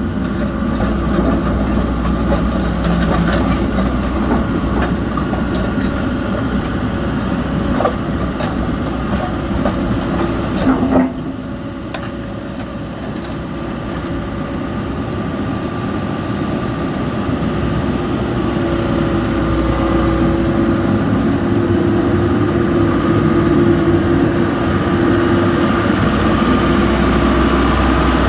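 Samsung SE130LC excavator's diesel engine running steadily, with a sharp knock about eleven seconds in. After the knock the sound drops briefly, then gradually grows louder.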